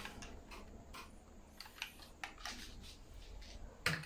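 Faint, scattered light clicks of a diecast metal model car being handled, with a louder click near the end as it is set down on the table.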